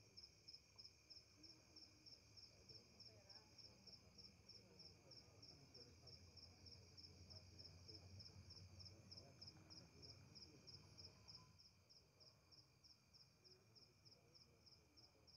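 Faint field ambience of insects chirping: a steady, high, even pulse about four times a second over a fainter steady high hum. A faint low rumble swells in the middle and drops away about three-quarters of the way through.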